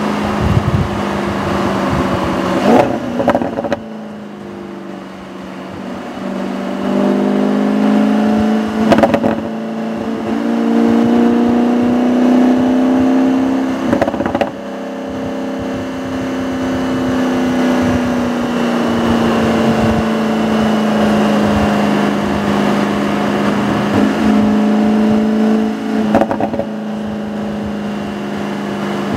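2017 Audi S6's twin-turbo V8 running under light throttle, its note rising slowly and then easing back down, with a few short knocks.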